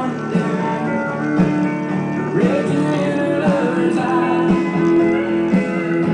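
Background music: a song led by guitar.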